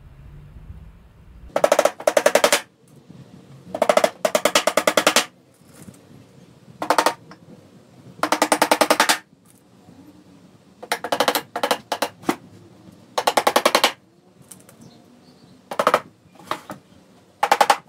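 Hammer driving small nails through a thin hardboard panel into MDF strips. It goes in short bursts of rapid taps with pauses between, and the panel over the hollow frame rings a little with each blow.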